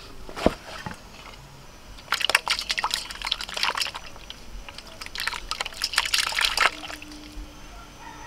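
Live stinging catfish (singi) thrashing in water in a steel bowl, splashing and sloshing in two bouts. A single sharp knock comes about half a second in.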